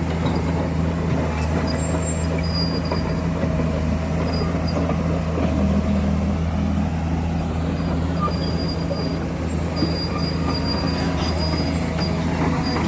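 Komatsu excavator's diesel engine running steadily with a constant low hum, with short high-pitched squeals coming and going over it.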